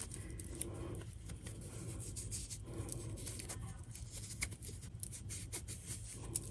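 Quiet rustling and scratching of a sewn fabric tube being worked over a pencil by hand to turn a doll's arm right side out, with scattered small clicks.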